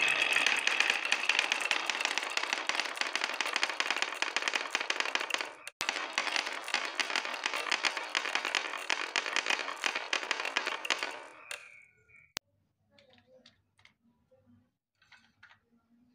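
Many glass marbles clattering down a wooden zigzag slope track, a dense stream of clicks and clacks. It breaks off for a moment about six seconds in, runs on, and thins to a few faint, scattered clicks after about twelve seconds.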